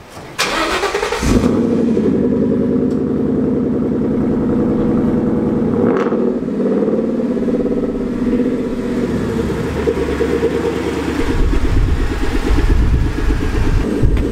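Ford Mustang 5.0 V8 starting, catching about a second in, then running steadily. A deeper exhaust rumble builds in the last few seconds as the car pulls away.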